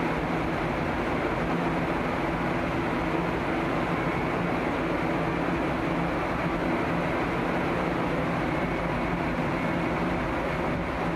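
A small passenger ferry's engines running steadily with a low hum, under the rush of water along the hull and wind on deck.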